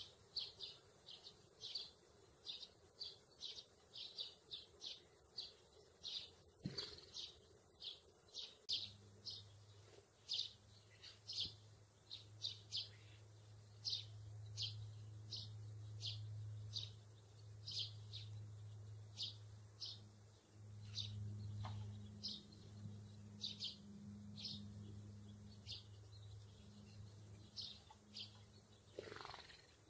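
House sparrows chirping: short, high chirps repeated a couple of times a second. About nine seconds in, a steady low hum from an unseen source joins them and runs almost to the end.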